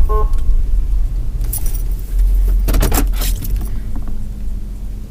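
Motor vehicle running with a steady low rumble, with short bursts of jingling, rattling clicks about a second and a half and three seconds in.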